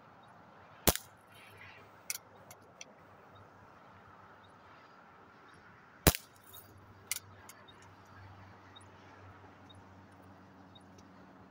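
Two shots from a .22 Benjamin Marauder air pistol, about five seconds apart, the second the louder. Each is followed about a second later by a fainter click.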